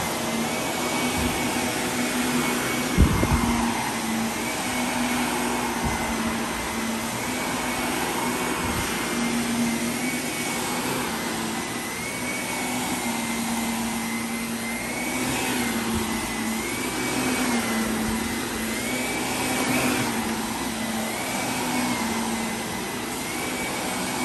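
Upright vacuum cleaner running on carpet, a steady motor hum that shifts slightly in pitch every couple of seconds as it is pushed back and forth, with one knock about three seconds in.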